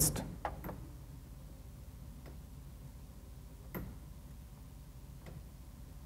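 Four faint clicks about a second and a half apart, over a low steady hum: a pushbutton wired to a WAGO telecontrol station's digital input being pressed and released, toggling a single-point signal on and off.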